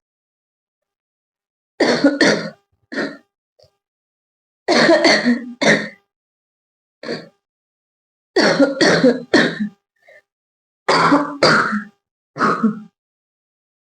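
A person coughing on purpose for a coughing challenge: about five bouts of two or three harsh coughs each, with short silent pauses between the bouts.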